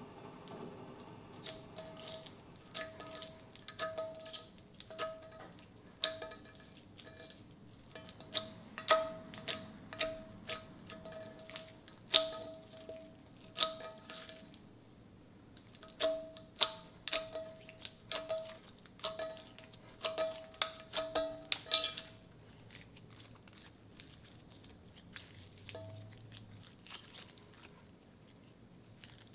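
Clear slime being squeezed, folded and kneaded by hand, giving a quick run of sharp clicks and pops as trapped air bursts. The pops come thick and irregular until about three quarters of the way through, then thin out to a few faint squishes.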